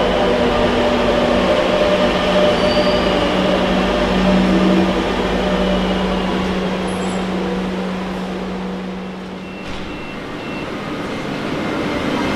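A Madrid Metro Serie 7000/9000 train runs into an underground station and comes to a stop, its steady motor hum dying away about nine seconds in. A few short high beeps follow, then a rising motor whine as a train starts to pull away near the end.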